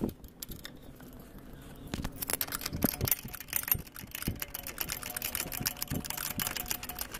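Ring spanner turning a nut onto a motorcycle's footrest mounting rod. Quick light metallic clicks of the steel spanner on the nut and bracket start about two seconds in.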